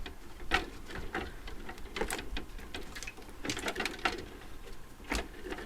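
Irregular clinks, knocks and rattles of metal parts from a stripped-down portable air conditioning unit being handled, about five sharp knocks spread over a few seconds.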